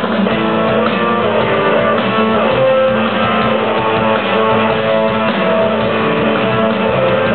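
Punk rock band playing loud and live, the guitar to the fore.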